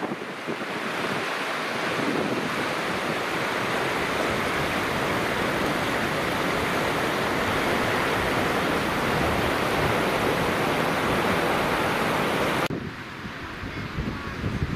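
Steady rush of fast-flowing floodwater. About two seconds before the end it cuts suddenly to gusty wind buffeting the microphone.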